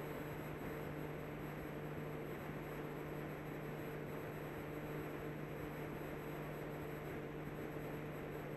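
Steady hiss with a low, even electrical hum and no voice: the background noise of the recording and its sound system.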